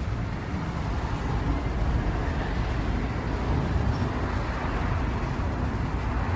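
A vehicle's steady, low rumble with no distinct tone.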